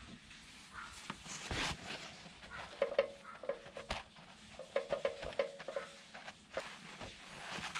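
A paper towel being pressed and rubbed over slices of smoked pork luncheon meat to blot off the oil, giving soft rustles, a few short squeaks near the middle and scattered small clicks and clinks.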